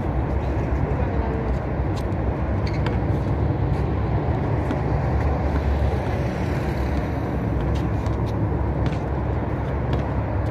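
Steady, loud low rumble of outdoor background noise, with a basketball bouncing on the concrete court in a few scattered sharp knocks.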